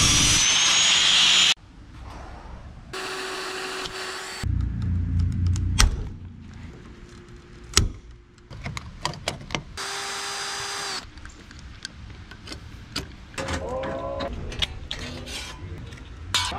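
Angle grinder cutting metal with a high whine, stopping abruptly about a second and a half in, followed by a string of short workshop sounds: a brief hum, a low rumble, scattered clicks and a short buzz. Near the end, hand snips cut through metal trim in several quick squeaking snips.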